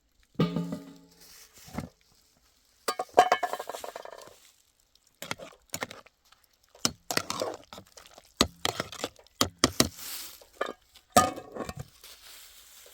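Dishes and utensils clinking and knocking together, a dozen or so sharp clinks, some leaving a brief ring.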